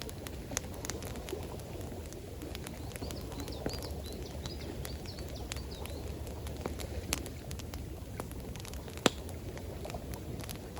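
Campfire crackling, with scattered sharp pops, a loud one about nine seconds in, over a steady low rush of water. A small bird calls a quick series of high notes from about three to six seconds in.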